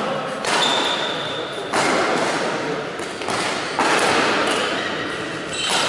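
Four sharp knocks about a second and a half apart, each ringing on in the echo of a large sports hall, with faint high squeaks over them.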